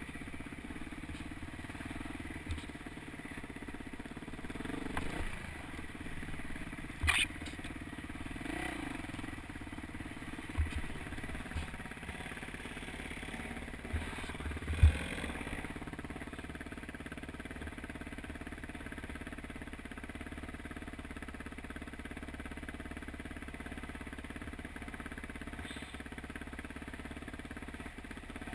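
Yamaha YZ426F four-stroke single-cylinder dirt bike engine running at low revs on a slow trail ride, revving up and back down briefly a couple of times. A few short sharp knocks come through, the loudest about 15 seconds in.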